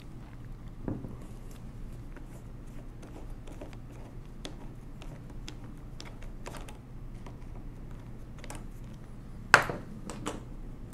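Small metallic clicks and ticks as a screwdriver backs a flathead screw out of a 1920s Monroe mechanical calculator. A louder clack comes near the end, followed by a lighter one.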